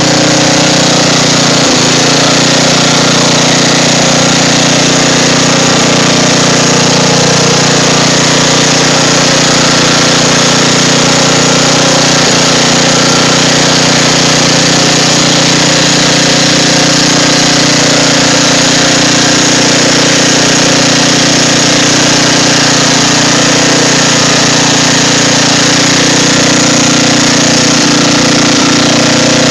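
Riding lawn mower's engine running loud and steady at a constant speed.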